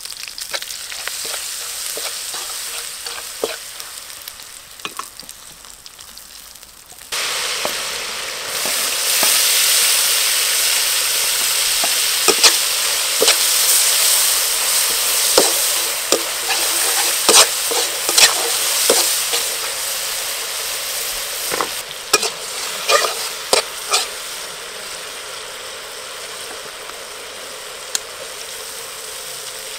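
Oil sizzling in a metal wok, softly at first, then much louder from about seven seconds in as diced tomatoes fry. A spatula scrapes and knocks against the wok while stirring, most often in the middle of the stretch.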